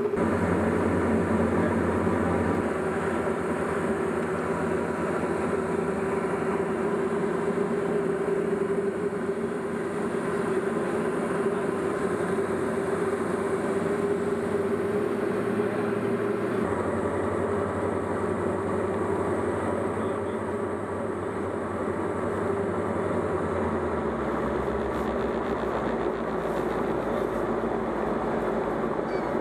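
Light aircraft's piston engine and propeller droning steadily in the cabin, the tone of the drone shifting a few times.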